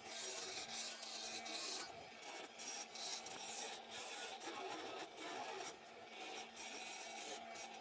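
Faint, irregular scraping and rubbing of metal being handled, in short uneven strokes, with a faint steady hum underneath.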